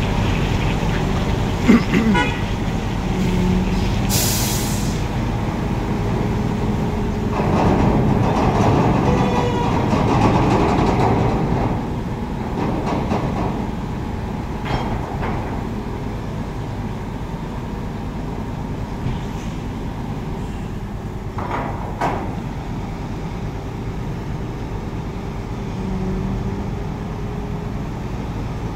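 Heavy diesel engine running steadily, louder for a few seconds from about seven seconds in, with a short burst of air hiss about four seconds in and a few sharp metallic clicks.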